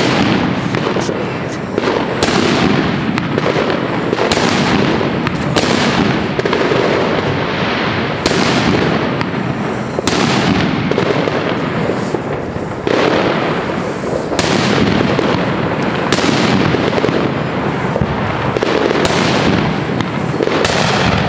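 Pyrostar Super Centipede firecracker mat going off in a dense, unbroken rattle of cracker bangs. Louder bangs stand out about every two seconds.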